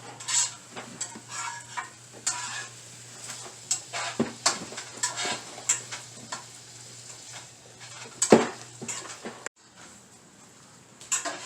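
Cutlery and dishes clinking and tapping: a scatter of short sharp clinks with one louder knock about eight seconds in, over a low steady hum.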